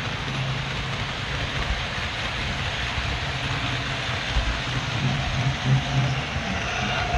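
HO-scale model train running along its track, heard from on board: a steady rolling hiss of wheels on rails with a low hum underneath.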